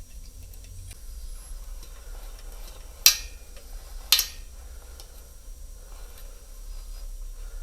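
Two sharp clicks about a second apart, from handling the front wheel's axle rod and springs on a folding e-bike during assembly, over a faint low hum.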